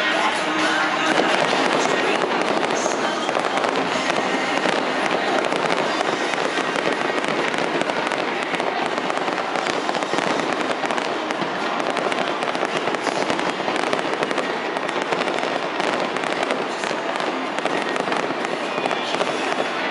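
A dense barrage of fireworks: many aerial shells bursting and crackling in rapid, unbroken succession, with no single blast standing out.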